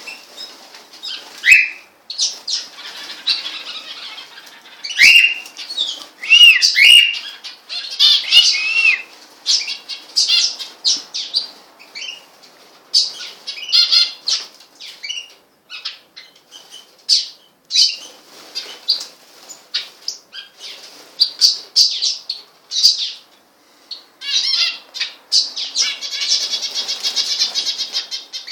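Pet birds chirping and calling: many short, high notes, some rising and falling, in an uneven stream, with a rapid trill near the end.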